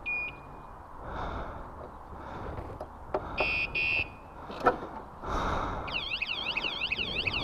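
Aftermarket motion-sensor motorcycle alarm. It gives a short beep near the start, then two warning beeps about three and a half seconds in, and about six seconds in goes into a fast warbling siren, set off by the bike being moved. A few knocks from the bike being handled come between the beeps.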